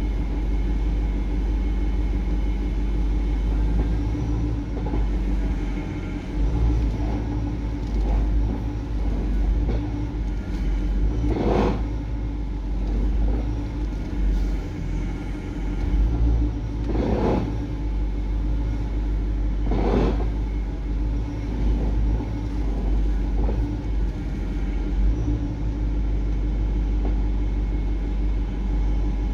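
BMW E60/E63 idling steadily while the steering is worked, with three short cracks from the active steering unit, two of them close together near the end. The owner links the cracking to the steering's actual angle sticking behind its target, suspecting the electric lock not retracting fully or a faulty actuator motor.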